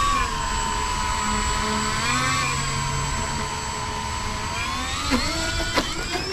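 The twin electric motors and propellers of an Avios King Twin RC plane running at high throttle, a steady high whine with a brief wobble in pitch about two seconds in. Near the end the pitch dips and surges several times, with a few sharp clicks.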